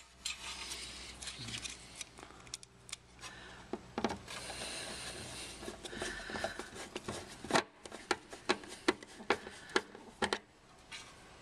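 Screwdriver driving stainless steel self-tapping screws into a Land Rover Defender's headlight mounting ring: irregular small clicks and stretches of scraping and rubbing, metal on metal.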